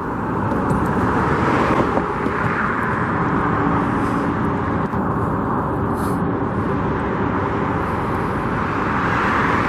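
Steady road traffic noise: a continuous rush of cars and tyres going by, swelling a little about two seconds in.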